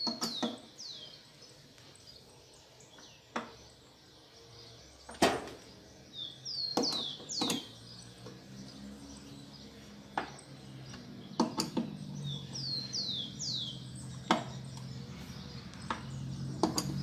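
A small bird calling repeatedly, each call a quick run of three or four down-sweeping chirps, the runs about six seconds apart. Sharp metal clicks and knocks of a wrench tightening screws, the loudest about five seconds in, with a low hum building in the second half.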